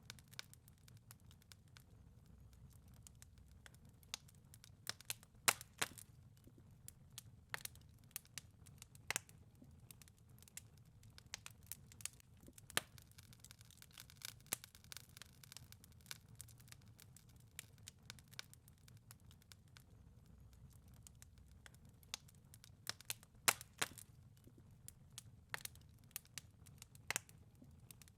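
Wood fire crackling in a fireplace: irregular sharp snaps and pops over a low, steady rumble.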